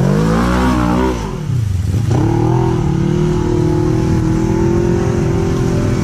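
Polaris RZR 1000 side-by-side's engine revving hard as it drives through creek water, the revs falling away about a second and a half in. An engine then revs up again and holds at a steady high pitch.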